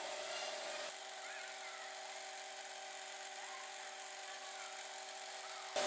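A steady machine-like hum made of several fixed tones over a soft hiss, with its deepest part dropping away about a second in.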